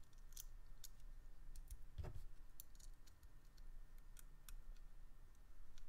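Faint, irregular small metal clicks and light taps from a folding knife's pivot parts being handled by fingers, with one fuller knock about two seconds in, as the pivot screw is threaded back in to push out the D-shaped pivot.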